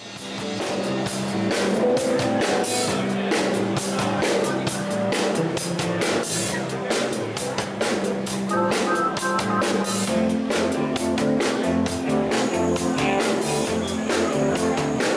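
Background music with a steady drum-kit beat and guitar, fading in at the start.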